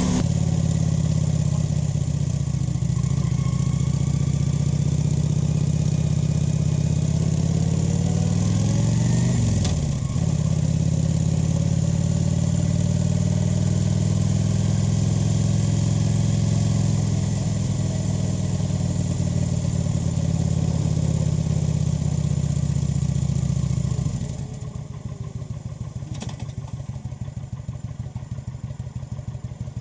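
Kawasaki VN 900's V-twin engine and exhaust running steadily while riding. The revs briefly dip and pick up again about ten seconds in. From about 24 seconds in it drops to a quieter, slower, pulsing beat at low revs.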